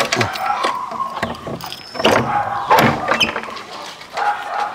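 A house door being unlocked and pushed open: clicks and knocks of the lock and door, with short squeaks from the door at the start, about two to three seconds in, and near the end.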